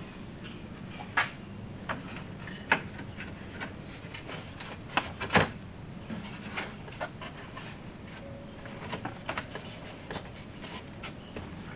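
Scattered light clicks and taps of parts being handled and worked by hand, irregularly spaced, with a sharper pair of knocks about five seconds in.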